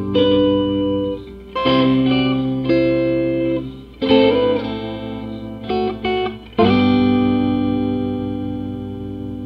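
Outro music on guitar: a few chords, each left ringing. The last one, struck about seven seconds in, slowly fades.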